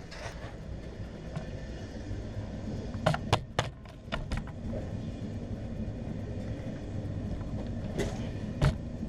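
A quick run of sharp clicks about three seconds in, two more a second later, and two louder ones near the end, over a steady low rumble.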